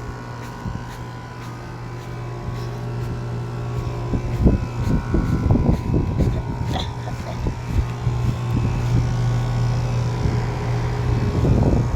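GMC 3-ton central air-conditioner outdoor unit running with a steady low hum. From about four seconds in, irregular low rumbling and knocks rise over the hum and the sound grows louder.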